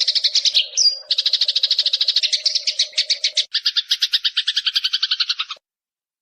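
Eurasian tree sparrows fighting: a fast, rattling chatter of chirps at about ten a second, with a short high squeal about a second in. The chatter changes pattern about three and a half seconds in and cuts off suddenly near the end.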